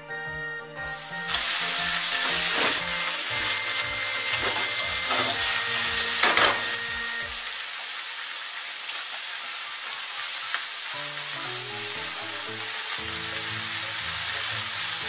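Extra-large peeled shrimp sizzling in hot salad oil in a nonstick frying pan. The sizzle starts about a second in as they go into the pan and carries on steadily as they fry.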